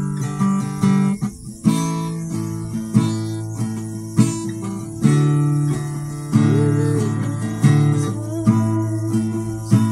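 Acoustic guitar strummed in chords, with a sharp strum about every three-quarters of a second and the chords ringing between strums.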